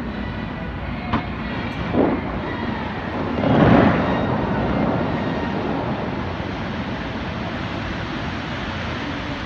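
Water jets of a large show fountain firing and rushing, heard as a steady rumble from far off. There is a short thump about two seconds in, then a loud swell of rushing spray around four seconds as the tall columns go up, which slowly dies away.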